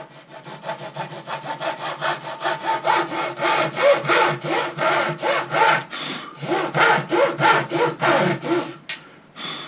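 Hacksaw cutting through a light Kevlar-reinforced composite wing skin in quick back-and-forth strokes, stopping shortly before the end.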